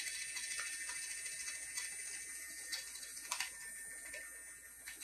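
Kactus Kutter K1 electric herb grinder running in reverse, its fine-grind setting: a steady high whir with scattered sharp ticks as cannabis is cut and drops from the spout. The sound gradually fades.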